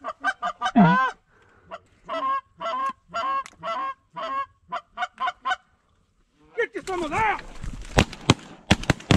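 Rapid Canada goose honks and clucks, one after another for about six seconds, then after a short pause several shotgun shots in quick succession near the end.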